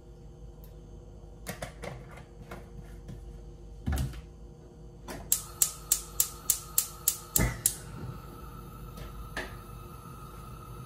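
A knock, then a gas stove's spark igniter clicking rapidly, about ten clicks in a little over two seconds, as a burner is lit.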